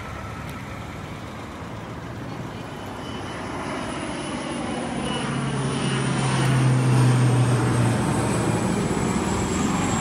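A passing engine, likely a vehicle or aircraft. It swells to its loudest about two-thirds of the way through, with a steady low hum at the peak, then eases off.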